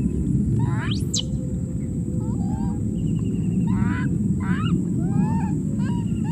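Short, high chirping animal calls, several a second from about two seconds in, after a quick rising whistle about a second in, over a steady low rumble and a faint, high, steady whine.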